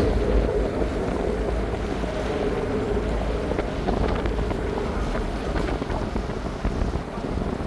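Passenger ferry's engine running with a steady low rumble and hum, with wind buffeting the microphone.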